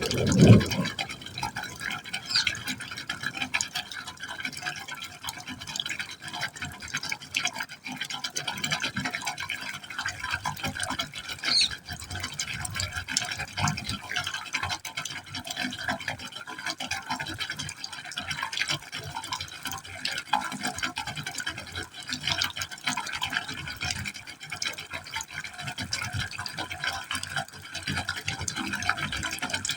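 Water falling into a pipe hole, splashing and trickling continuously with an irregular, fluttering texture. A louder low splash comes about half a second in.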